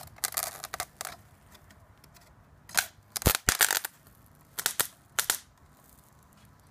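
Sharp crackling snaps of electrical arcing as steel bolt cutters make and break contact with a metal strip carrying thousands of amps from a homemade low-voltage, high-current transformer: an arc-welder transformer rewound with railway cable. The snaps come in several clusters, the loudest about three to four seconds in.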